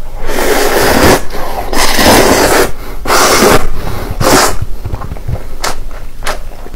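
Instant noodles being slurped: several long, loud slurps in the first four and a half seconds, then two short sucks near the end.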